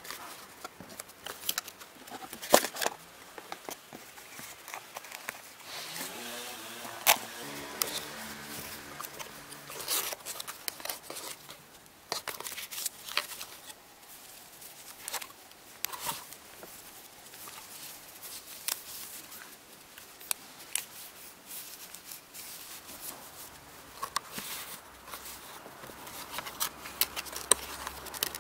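Cardboard packaging and paper being handled: box flaps folded and slid open, an inner cardboard tray pulled out, paper manuals leafed, with scattered taps, clicks and scraping rustles.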